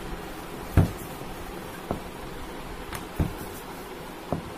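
Rolling pin working dough on a wooden board, making four dull knocks about a second apart as the pin and board bump, the first about a second in the loudest, over a steady background hiss.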